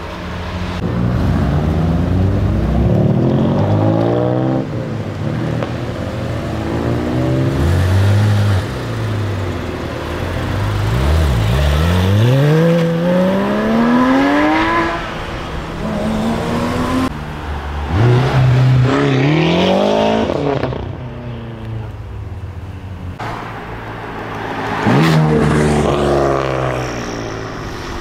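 Several short clips of sports car engines accelerating hard away, including a BMW M3 and a Porsche 911 GT3. Each exhaust note climbs steeply in pitch as the revs rise, and the sound cuts abruptly from one car to the next.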